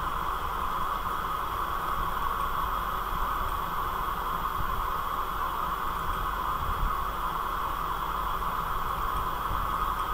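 Steady background hiss with a faint low hum, even throughout, typical of a recording microphone's noise floor.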